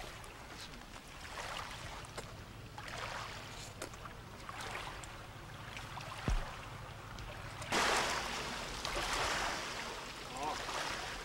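Lakeshore ambience with small waves lapping at the water's edge. A dull bump comes about six seconds in, and a louder rush of noise starts suddenly near eight seconds and fades over a couple of seconds.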